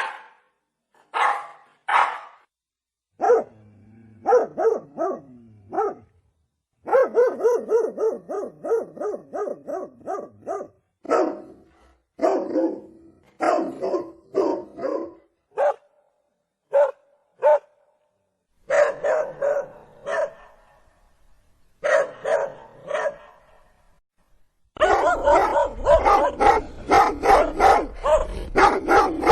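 A dog barking over and over in short groups of barks with pauses between, breaking into a fast, dense run of barking near the end.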